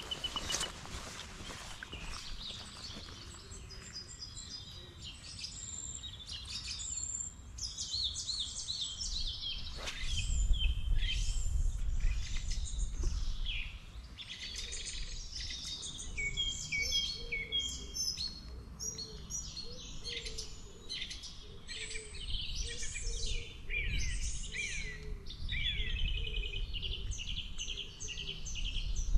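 Dawn chorus: many songbirds singing and calling at once, high chirps and trills overlapping throughout, with a lower repeated call in the middle stretch. A low rumble runs underneath and is strongest about ten seconds in.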